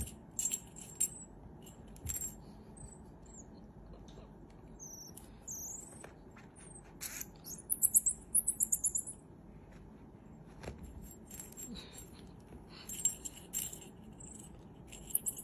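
A small jingle bell on a cat-teaser toy jingling in bursts as common marmosets grab and pull at it, with a fast run of jingles about eight seconds in. Between the jingles come brief high-pitched marmoset chirps and short whistles that bend up and down.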